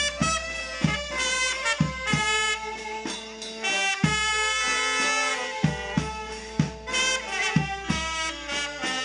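Brass band of several alto saxophones, a trumpet and a tuba playing a melody together, with a bass drum thumping the beat.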